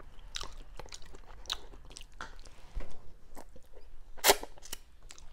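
Close-miked eating of instant ramen noodles: wet chewing and many small mouth clicks, with one louder slurp about four seconds in as noodles are drawn into the mouth.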